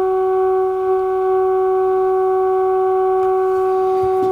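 Steady audio test tone from a Healing 503E valve radio's speaker: the radio is tuned onto a signal generator's modulated test signal at 600 on the dial during alignment. One unwavering mid-pitched tone with overtones, at a constant level.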